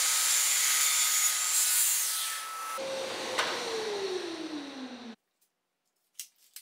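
Festool Kapex sliding miter saw running at full speed, cutting a 45° miter through poplar crown molding. About three seconds in the motor winds down with a falling whine, and the sound cuts off suddenly a little after five seconds.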